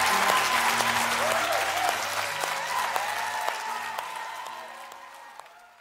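Church congregation applauding over soft background music, fading out steadily to silence.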